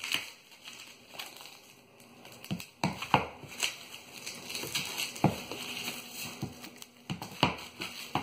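Plastic cling film crinkling and crackling as it is peeled off a Kevlar-and-epoxy plate, with a few sharp knocks and taps, the loudest about three, five and seven seconds in.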